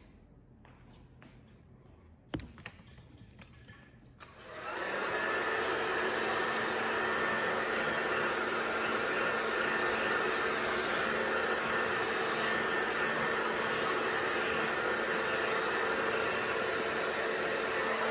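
Handheld hair dryer switched on about four seconds in and running steadily at one constant pitch, blowing on wet acrylic paint to dry it. A single light knock comes about two seconds in, before it starts.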